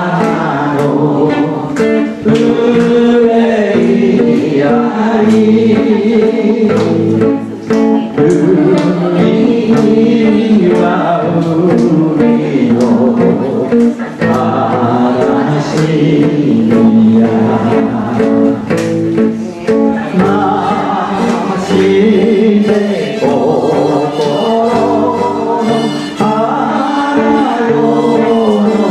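Singing of a slow Japanese ballad, the first verse, with guitar accompaniment.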